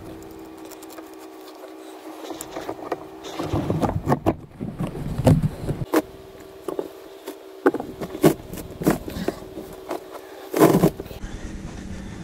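Glued-down carpet being pulled up off a boat cabin floor: irregular scraping and rustling with knocks from handling, loudest in a sharp burst near the end. A faint steady hum runs underneath.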